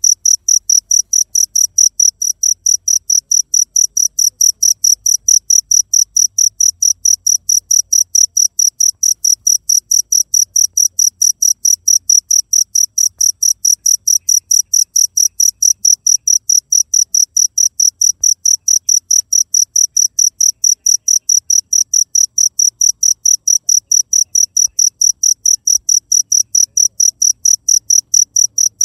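Cricket chirping in a steady, even rhythm, about four high-pitched chirps a second.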